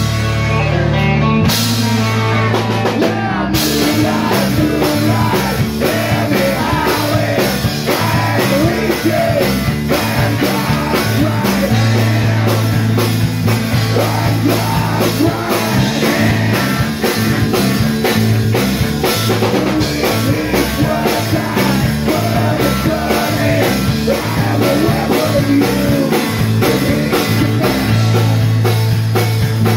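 Live rock band playing: a man sings lead over electric guitars and a drum kit. The drums come in about three and a half seconds in.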